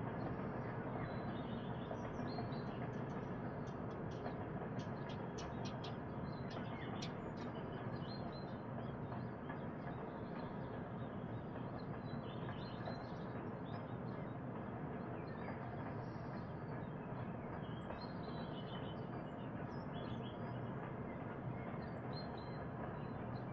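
Morning birdsong: several small birds chirping and singing, with a flurry of quick high chirps a few seconds in, over a steady background rumble.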